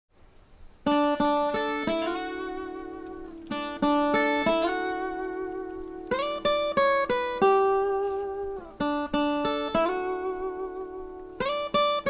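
Intro music: a solo plucked string instrument plays short phrases of three or four notes, about every two and a half seconds, starting about a second in. Each phrase is left to ring and fade, and some notes bend slightly in pitch.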